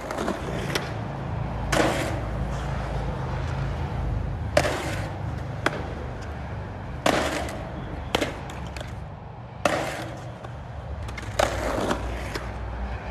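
Skateboard on rough concrete: the wheels roll with a steady low rumble, broken by several sharp clacks of the board slapping down onto the concrete, each with a brief rattle.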